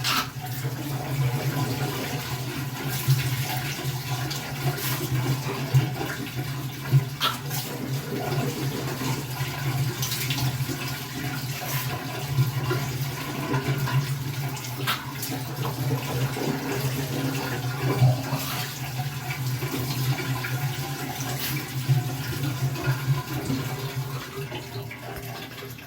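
A bathroom sink tap running, with scattered short knocks and splashes and a steady low hum underneath.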